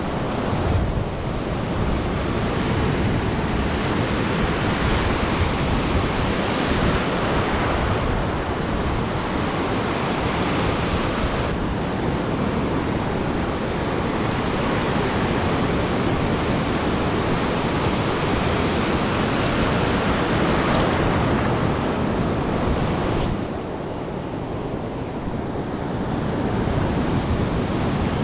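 Ocean surf breaking and washing ashore with wind on the microphone, a steady rush that eases for a few seconds about three-quarters of the way through and then builds again.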